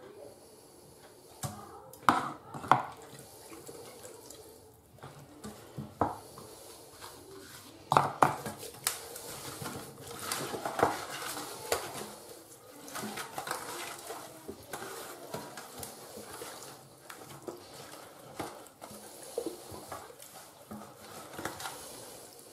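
Hands rubbing an oily marinade into a raw whole chicken in a stainless-steel tray: wet slapping and squelching of the skin, with several sharp knocks as the bird and utensil hit the metal tray.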